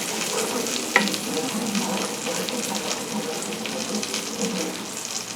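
Food sizzling and crackling in a hot frying pan, with one sharp clink about a second in.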